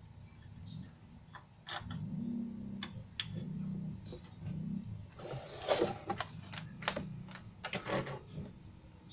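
Scattered clicks, taps and rustles of hands handling a CRT TV's circuit board and its wiring while a replacement capacitor is fitted, with a dense clatter of clicks a little past halfway and another near the end.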